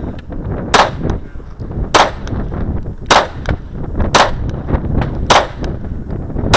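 Kahr CW9 9mm pistol firing six single shots at a slow, even pace, about one every second, each a sharp crack.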